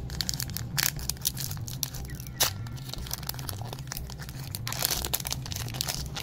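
Foil wrapper of a Pokémon TCG booster pack being torn open and crinkled by hand, a run of sharp crackles and rips. The sharpest crack comes about two and a half seconds in, and a longer crinkle near the end.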